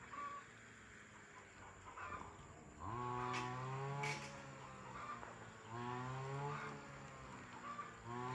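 Cattle mooing: three long, deep calls about two and a half seconds apart, each rising in pitch at the start and then held.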